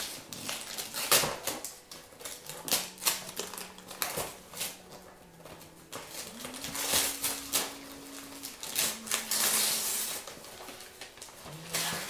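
Gift wrapping paper being crinkled and torn off a boxed present: irregular crackles and rips, with longer tearing stretches about six and a half and nine seconds in.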